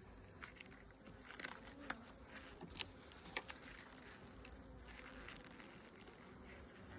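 Honeybees buzzing faintly around an open hive during a frame inspection. A handful of sharp clicks and taps come about one and a half to three and a half seconds in.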